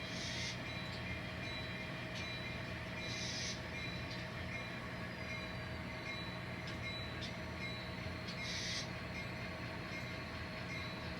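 N scale model train running slowly along the track, a steady hum with a few fixed tones. Three short hisses come about at the start, three seconds in and eight and a half seconds in.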